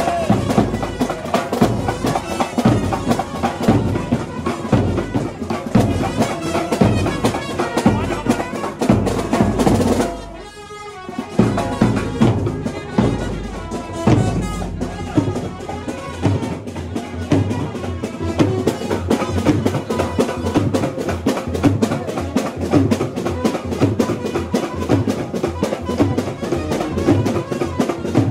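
Live Indian street brass band playing loud, fast drumming under brass and saxophone. The music drops away sharply for about a second roughly ten seconds in, then carries on.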